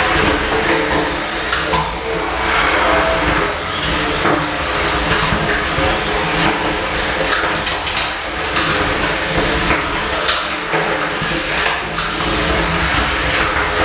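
Small combat robots' electric drive motors whining steadily as they drive around the arena, with repeated sharp knocks and bangs as they collide with each other and the arena walls.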